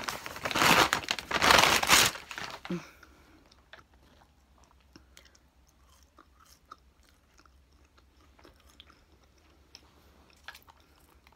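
Paper food wrapper crinkling loudly for about the first two seconds, then quiet close-up chewing with small mouth clicks.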